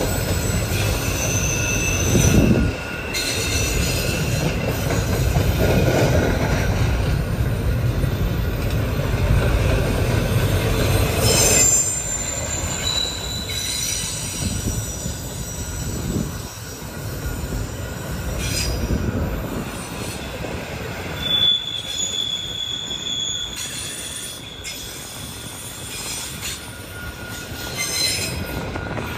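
Double-stack intermodal freight cars rolling past: a steady rumble of wheels on rail, with short high-pitched wheel squeals coming and going. The rumble is loudest for the first dozen seconds and eases off after that.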